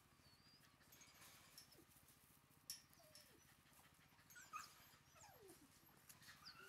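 Shiba Inu whimpering faintly: three or four short whines spaced a couple of seconds apart, each sliding down in pitch.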